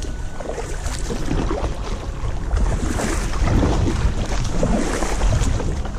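Reeds and tall sedges rustling and scraping along an inflatable kayak as it is paddled through them: a dense crackle that grows louder toward the middle, over a low rumble of wind on the microphone.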